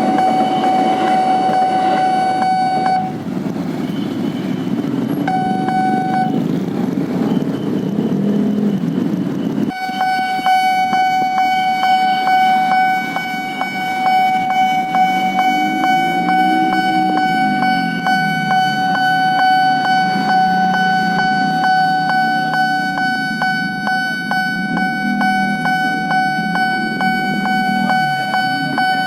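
Level-crossing warning bell ringing steadily while KRL electric commuter trains pass, with rushing train noise early on and a horn. The bell sound cuts out briefly twice in the first ten seconds.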